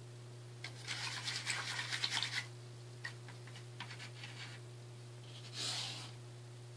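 Scratchy rubbing and rustling for about two seconds, then a few light clicks, and a short swish near the end, over a steady low electrical hum.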